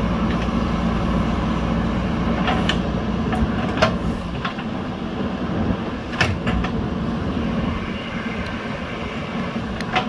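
JCB backhoe loader's diesel engine running under load while the backhoe digs soil, easing off somewhat about halfway through. A few sharp knocks from the digging gear stand out over the engine.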